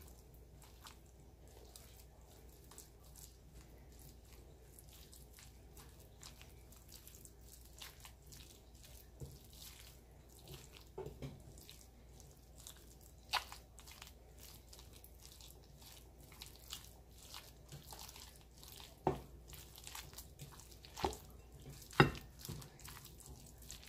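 Wooden spoon stirring a thick mix of cooked ground turkey and cream cheese in a glass bowl: faint soft squishing and scraping, with a few sharper taps of the spoon against the glass, the loudest near the end.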